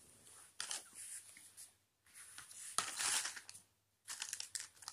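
Hands handling a phone's cardboard boxes and packaging: three bursts of rustling and scraping, the loudest about three seconds in.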